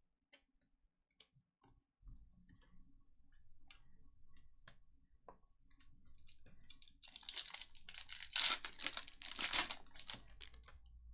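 Light clicks of trading cards being handled, then, about seven seconds in, a few seconds of crinkling and tearing, typical of a foil card pack wrapper being ripped open.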